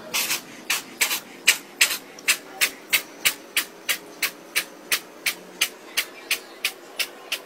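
Orange kitten sneezing over and over in short, sharp, hissy sneezes, a little more than two a second, at a very steady pace.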